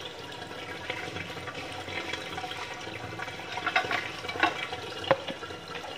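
Water from a garden hose pouring steadily into a rubber tub of water, with a few light knocks in the second half, the sharpest about five seconds in.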